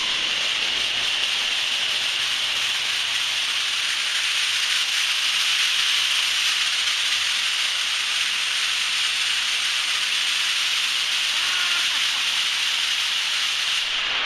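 Extremely loud garage door opener running for about fourteen seconds with a steady, harsh, high screeching and scratching noise that starts abruptly and cuts off suddenly near the end.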